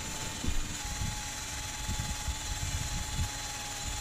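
Flux-core wire welder arc running steadily while laying a bead over a cracked joint: a continuous crackling hiss with a thin steady whine under it.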